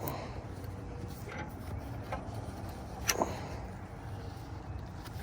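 C-clamp being screwed in to press a brake caliper piston back into its bore: a few light metallic clicks and one sharper click about three seconds in, over a steady low hum.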